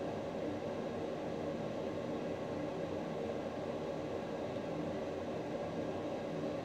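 A small electric fan or blower on the workbench running steadily: an even whir with a hum of several fixed tones, no change throughout.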